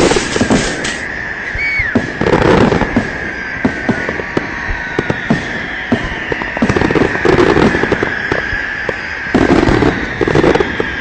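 Firecrackers and fireworks going off in a dense, irregular string of sharp bangs and crackles. A thin steady whistle runs under them, and a long, slowly falling whistle passes through the middle.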